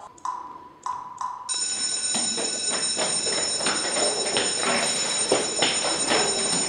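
A few short electronic tones from a tablet game app, then from about a second and a half in an electric bell rings loudly and steadily, a high ring over a rattling clatter.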